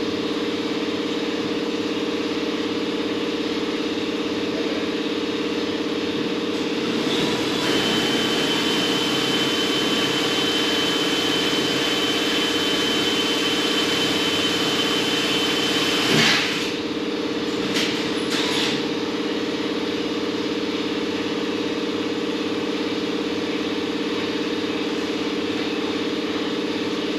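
Small electric water pump running with a steady whine and hiss over a constant machine hum. It is switched off with a sharp click about sixteen seconds in, followed by a few small clicks.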